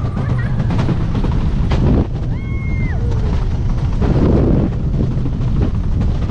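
Rocky Mountain Construction wooden roller coaster train running at speed along the track, with a heavy continuous rumble and rushing wind noise. About two seconds in, a rider lets out one long held scream.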